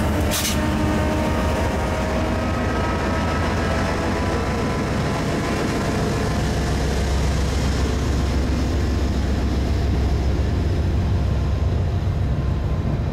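Diesel freight locomotives running as they move, a steady deep engine rumble with faint whining tones above it.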